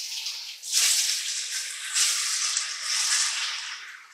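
Cubed raw pork sizzling as it is dropped by the handful into hot oil in a Dutch oven. The sizzle swells with each handful, about one, two and three seconds in, and dies down near the end.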